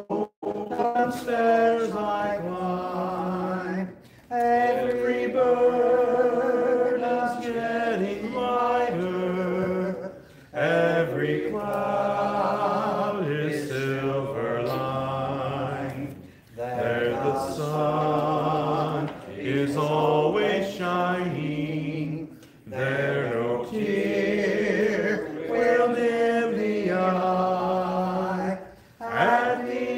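Slow hymn singing, in phrases of a few seconds with long held notes and short breaks between them.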